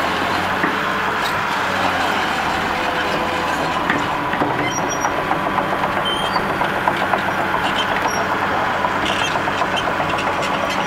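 Komatsu PC200LC excavator's six-cylinder diesel engine running steadily; from about four seconds in a fast, rhythmic clanking joins it, the steel crawler tracks moving over the rollers and sprockets as the machine travels.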